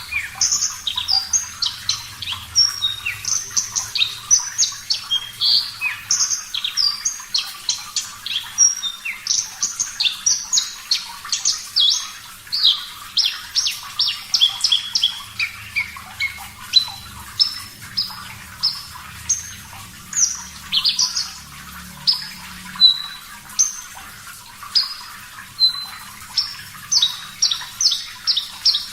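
Javan bush lark (branjangan, parva subspecies) singing continuously: a rapid, unbroken stream of varied high whistled notes, slurs and short trills, recorded as 'gacor' training song for caged birds.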